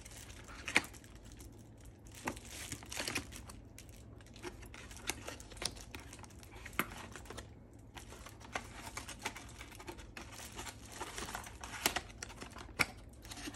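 Packaging being handled and cut open: a plastic bag crinkling, small paper boxes and corrugated cardboard rustling, and scissors cutting the cardboard, heard as scattered light clicks and crinkles.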